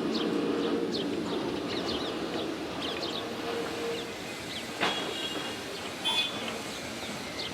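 Small birds chirping in quick, repeated falling notes over a steady low mechanical hum that fades away about halfway through. A sharp click about five seconds in and a brief short tone about a second later.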